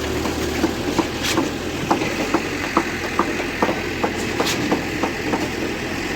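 Engine of a concrete pump machine running steadily, with many short irregular knocks and clicks over it.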